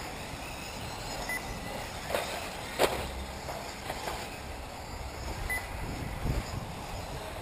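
1/8-scale electric off-road RC buggies racing on an outdoor track, over a low rumbling background. A sharp knock just before three seconds in is the loudest sound, with a softer knock shortly before it. Two very short high beeps come, one a little over a second in and one near the end.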